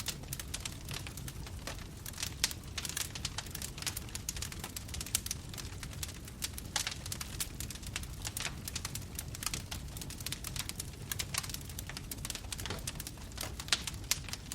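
Fire crackling: a continuous stream of irregular sharp pops and snaps over a steady low rumble.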